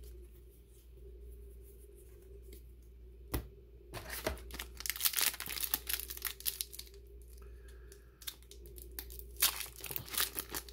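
A trading-card booster pack wrapper being torn open and crinkled by hand, in a dense burst of crackling from about four seconds in, then a short lull and more crinkling near the end. A single sharp tap comes shortly before the tearing starts.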